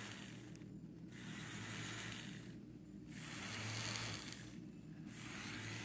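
Faint airy whir of a small bubble-machine fan motor, swelling and fading about every two seconds over a low steady hum.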